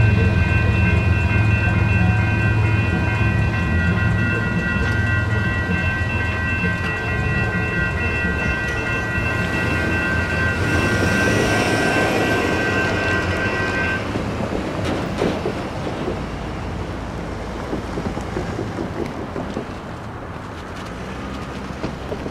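Railroad crossing electronic bells (NEG and WCH E-Bell) ringing steadily over the low rumble of a departing freight train. The bells cut off abruptly about two-thirds of the way through, as the gates finish rising, and the train's rumble keeps fading.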